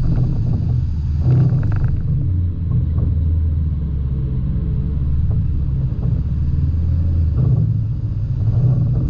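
Engine of a side-by-side off-road vehicle running as it drives along a dirt trail, a steady low drone. The engine note drops about two seconds in and rises again near the end.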